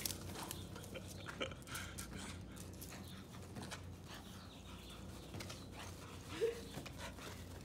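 Small dogs panting as they chase a balloon, with scattered light taps over a steady low hum and one brief high squeak about six and a half seconds in.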